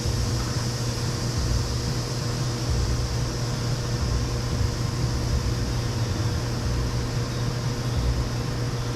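Steady mechanical hum with a constant low drone, a faint steady tone above it and a light hiss, unchanging throughout.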